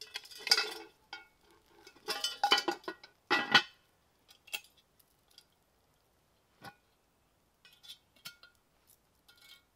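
A Dutch oven being lifted and hung on a metal chain: its handle and lid clink and rattle against the chain in three busy bursts over the first four seconds, followed by a few lighter single clinks.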